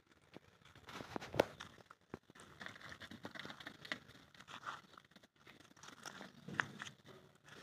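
Irregular crunching and rustling steps on dry straw-covered dirt, with a few sharper clicks, loudest about a second and a half in and again near the end.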